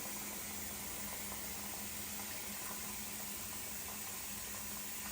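Café Bellissimo espresso machine running a cleaning cycle: a steady hum with an even hiss of water passing through.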